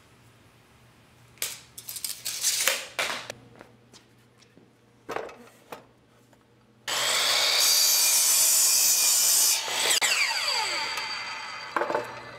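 Ryobi miter saw crosscutting a treated pine 2x4: the saw starts abruptly about seven seconds in, runs through the cut for under three seconds, then winds down with a falling whine. Before it, a few knocks and scrapes as the board is handled.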